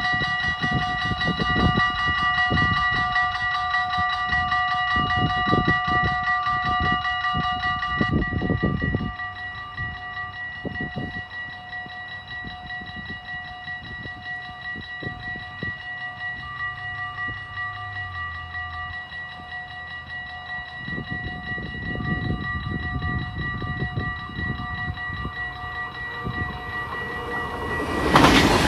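Electronic level-crossing bell ringing steadily, noticeably quieter from about eight seconds in, over irregular low rumbles. Near the end the rush of an approaching double-deck passenger train swells up.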